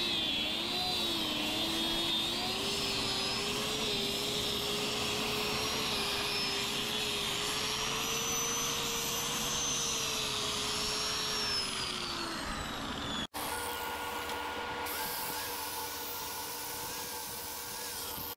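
Handheld electric sanding tool running with its pad pressed against a spalted wood bowl turning on a lathe, its motor whine wavering and creeping up in pitch as the pressure changes. After a cut about two-thirds of the way in, a steadier machine hum takes over: the wood lathe spinning the bowl on its own.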